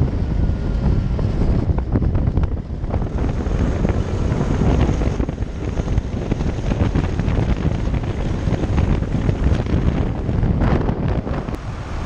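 Wind buffeting the microphone of a camera mounted on a moving go-kart, a steady low rumble, with the kart's running noise underneath.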